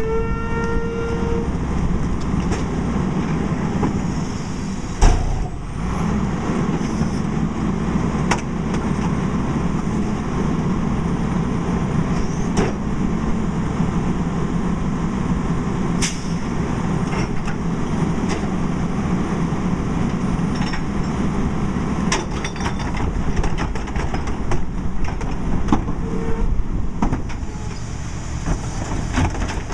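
Garbage truck's diesel engine running steadily as the hydraulics drive the rear cart tippers of a Heil PowerTrak rear loader, dumping trash carts into the hopper. A pitched whine rises at the start, there is one loud bang about five seconds in, and carts and trash knock and clatter now and then.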